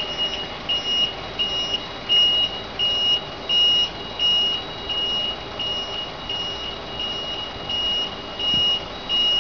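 Warning beeper on a truck-mounted articulated aerial platform, beeping evenly at about three beeps every two seconds while the boom moves the work basket, over the steady hum of the truck's running engine.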